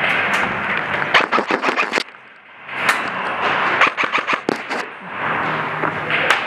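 Airsoft guns firing rapid strings of shots, with a short lull a little over two seconds in.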